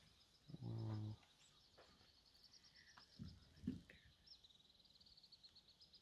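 Quiet outdoor ambience with a faint, high, rapidly pulsing trill running through most of it. About half a second in there is a short low hum, and a couple of soft knocks follow near the middle.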